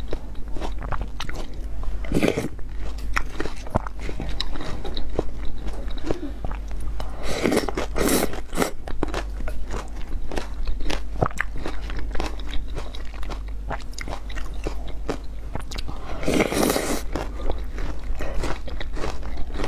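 Close-miked eating: chewing and mouth clicks on spoonfuls of yogurt with fruit and crunchy oats, with light spoon sounds, and three louder, longer spells about two seconds in, around eight seconds and near sixteen seconds.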